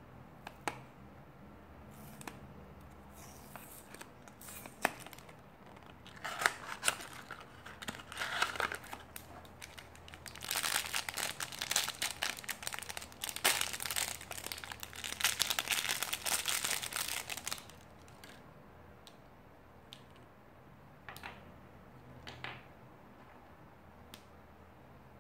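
A small foil blind-bag packet crinkled and torn open by hand, densest and loudest through the middle. Before it come lighter clicks and rustles of a small cardboard toy box being opened, and near the end a few light taps as the tiny plastic figure is handled.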